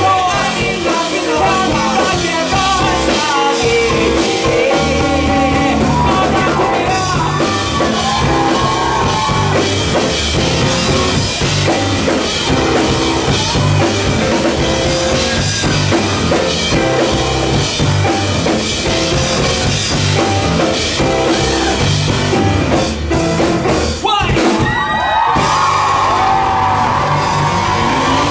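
Live rock band playing loud: distorted electric guitars, bass and drum kit, with a male lead singer. Near the end the playing breaks off for a moment and a held, slightly falling guitar note rings on.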